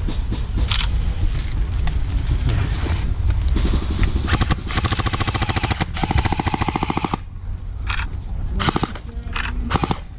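Airsoft electric guns firing on full auto. The main burst is a rapid, evenly spaced string of shots about four and a half seconds in, lasting about two and a half seconds, with shorter sharp bursts before and after it.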